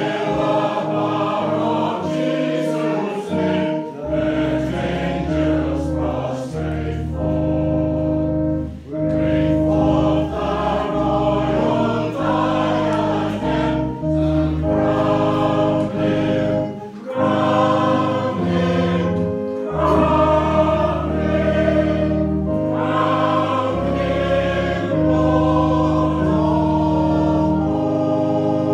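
Congregation singing a processional hymn together, with a sustained keyboard accompaniment holding long chords under the voices.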